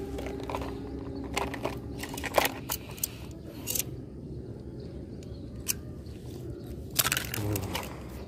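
Scattered knocks, scrapes and crackles from landing and handling a freshly caught snakehead fish, the loudest about two and a half seconds in and again near the end, over a steady low rumble.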